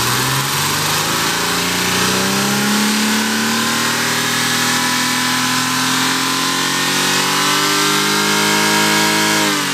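Toyota Camry V6 engine free-revved from idle up to about 6,000 rpm: the pitch climbs over the first couple of seconds, is held high and creeping higher, then falls as the throttle is released near the end. It is a test of how well balanced the V6 is at high revs.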